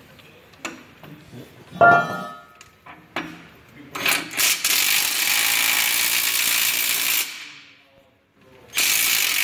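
Hart cordless 1/2-inch impact wrench hammering on a bolt under a tractor's hitch bracket to break it loose for removal: a steady rattling burst of about three seconds that dies away, then a second burst near the end. A short sharp sound comes before it, about two seconds in.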